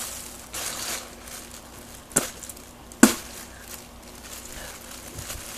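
Thin plastic bag handled and held open: a brief crinkling rustle about half a second in, then two sharp clicks a little under a second apart near the middle.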